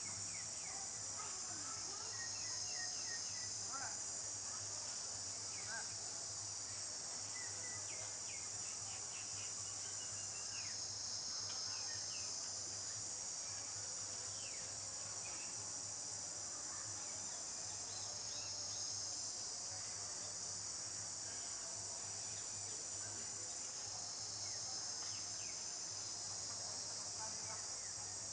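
Insect chorus in a tropical forest: a dense, high, continuous buzzing trill that fades and swells again a few times, with scattered faint short chirps over it and a low steady hum underneath.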